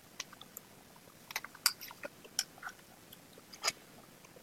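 About half a dozen faint, scattered clicks and crackles, one louder click about three-quarters of the way through, as a plastic card and the opened Huawei P8 phone are handled to pry out its glued-in battery.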